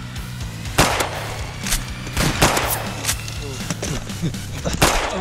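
A series of sharp gunshot-style bangs, about seven spread irregularly, some followed by a falling whistle, over background music.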